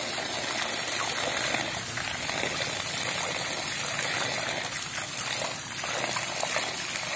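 Water running steadily from a tap, splashing over a handful of mimosa (putri malu) leaves being rinsed clean.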